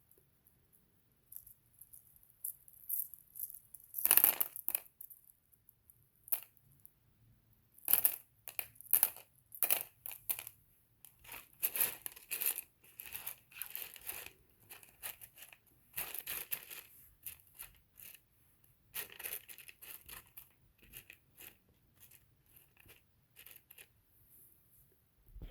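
Small rough opal chips clicking and rattling against one another as they are handled, in a run of short irregular clinks with a louder clatter about four seconds in.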